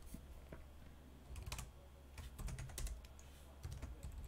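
Computer keyboard typing: a few short runs of faint keystrokes.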